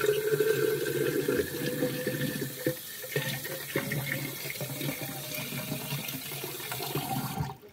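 Kitchen tap running, its stream pouring into a glass jar in a stainless-steel sink. It comes on suddenly and is shut off a little before the end.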